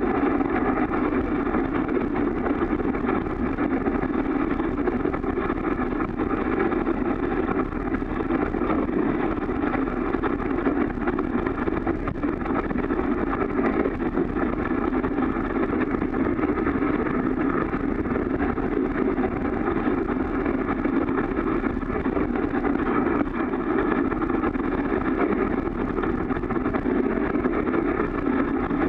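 Dog sled running over a packed snow trail, its runners giving a steady, unbroken noise that comes through muffled by the sealed action-camera case.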